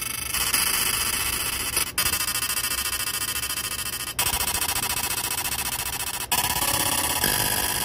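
Laser engraver marking the inside of a metal ring: a steady, high-pitched buzz that breaks off briefly and changes pitch every two seconds or so as each new section of the engraving starts.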